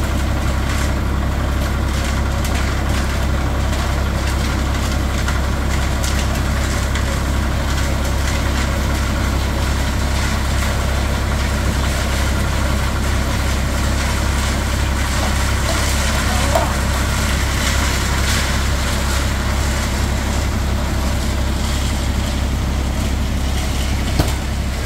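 Stationary engine on a concrete-pouring job running steadily at constant speed, a loud even drone with a strong low hum. A brief knock comes about 16 seconds in.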